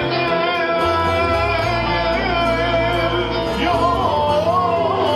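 Men singing a slow melody in long held notes that waver and slide in pitch, accompanied by a plucked lute.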